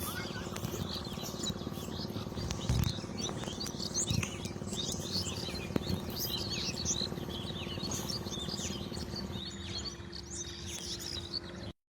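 Many small birds chirping busily in quick, overlapping calls, over a steady low hum, with a couple of dull thumps about three and four seconds in. The sound cuts off abruptly near the end.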